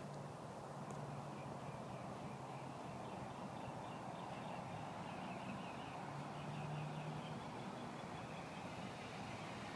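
Faint steady outdoor background with a low hum, and a run of faint repeated bird calls through the middle.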